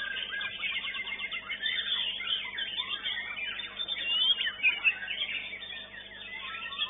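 Several songbirds singing at once: a dense mix of rapid chirps, trills and short whistled notes, with a few louder sharp notes about halfway through. A faint steady hum lies underneath.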